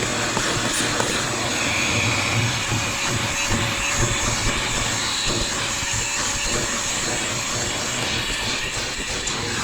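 Hyper Tough 2.0 vacuum cleaner running steadily, sucking over car carpet: an even rush of air with a faint steady whine.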